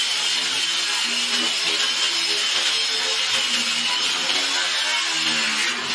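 Angle grinder running steadily with a high whine, its disc grinding rust and enamel off the steel top of an old gas stove.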